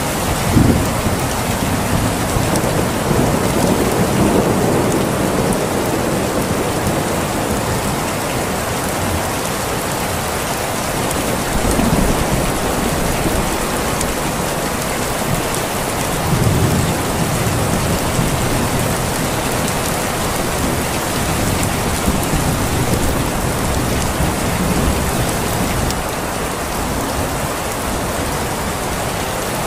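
Rain falling steadily and heavily, with a few low rolls of thunder swelling up now and then.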